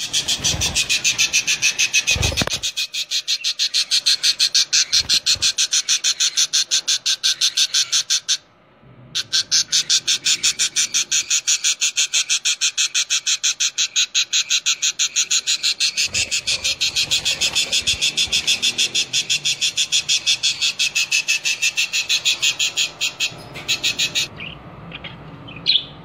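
Budgerigar chick begging: rapid, evenly spaced high-pitched chirps repeated on and on, with a short break about eight seconds in.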